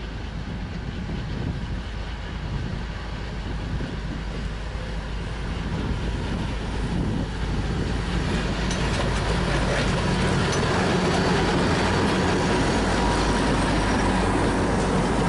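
ST44 (M62 "Gagarin") diesel locomotive's two-stroke V12 engine running under load as it pulls a freight train past, growing louder as it approaches. Near the end the rumble of the first freight wagons rolling by joins in.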